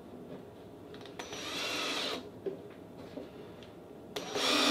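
Cordless drill-driver driving deck screws into a wooden board. It makes a short run of about a second, its whine rising and falling, then starts another run near the end.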